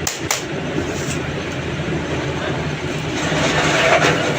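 A steady low mechanical rumble, with a couple of sharp clicks right at the start and a louder noisy swell about three seconds in.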